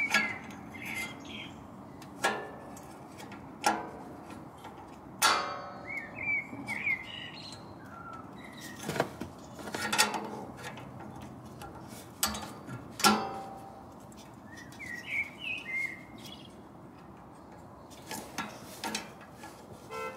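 Irregular sharp metallic clicks and knocks from parts and hand tools being handled while a new exhaust valve actuator is fitted to the rear silencer. Small birds chirp in short bursts in the background, near the start, midway and near the end.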